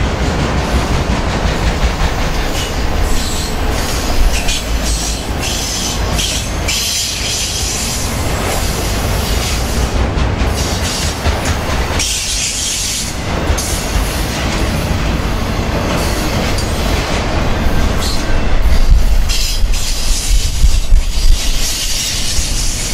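Norfolk Southern freight train's autorack cars rolling past close by: a steady, loud rumble of steel wheels on the rails with rapid clatter, and high-pitched rattling that comes and goes every few seconds.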